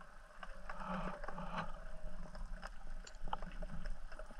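Underwater ambience: many scattered sharp clicks and crackles over a steady low rumble of water, with a denser stretch of crackling about a second in.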